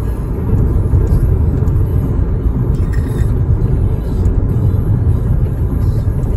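Steady low road rumble of a car driving at speed, heard inside the cabin: tyre and engine noise.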